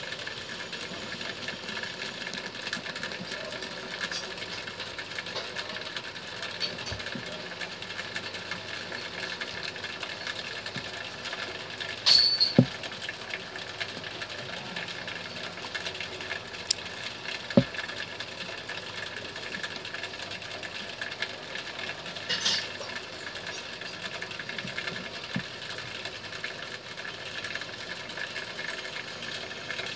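A steady mechanical hum, with a few sharp clicks and knocks from the calculator being handled and its keys pressed. The loudest clicks come about twelve and seventeen seconds in.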